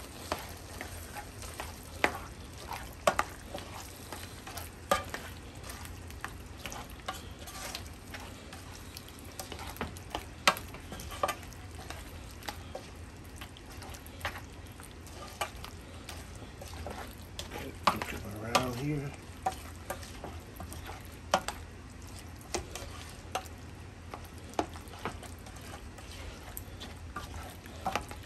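Spoon stirring cream of mushroom soup into a pot of browned meat and onions, scraping and knocking against the pot in scattered sharp clicks over a steady sizzle of the food cooking.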